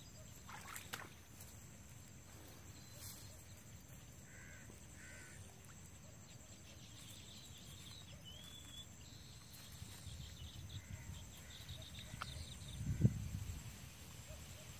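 Faint bird calls, a few short calls and some higher chirps, over quiet outdoor background, with a dull low thump near the end.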